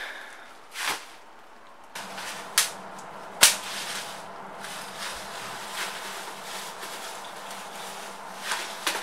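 Bubble wrap rustling and crinkling as it is pulled off a metal part, with three sharp pops, the loudest about three and a half seconds in.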